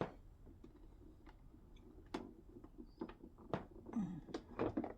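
Scattered light clicks and knocks of a dehumidifier being handled as its water tank is checked, coming more often in the second half.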